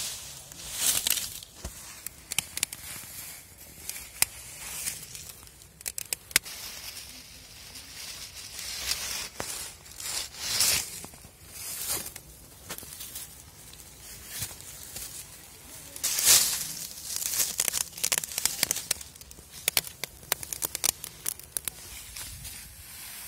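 Dry sugarcane bagasse rustling and crunching in bursts as it is gathered up by hand and shoved into a furnace, with many sharp snaps and crackles throughout.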